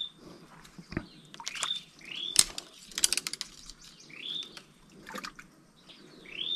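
A bird calling repeatedly, each call a short rising whistled note, every second or two. Sharp clicks and knocks come in between, the loudest about two and a half seconds in, followed by a quick run of clicks.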